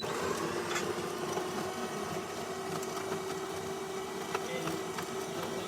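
DeLonghi PrimaDonna Deluxe espresso machine's built-in burr grinder grinding coffee beans for one espresso: a steady grinding hum with small crackles that starts abruptly and runs without a break.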